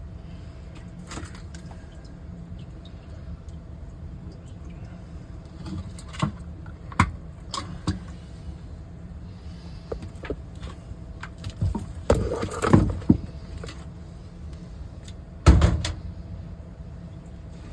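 A steady low hum with scattered knocks and clatters of handling, a cluster of them about two-thirds through and the loudest thump near the end.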